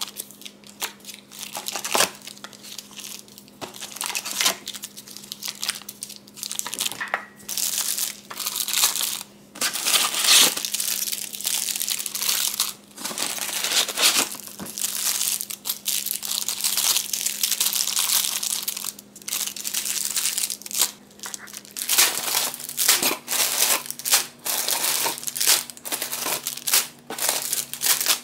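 Crinkly packaging being handled and crumpled: rapid, irregular crackling rustles that grow busier in the last few seconds.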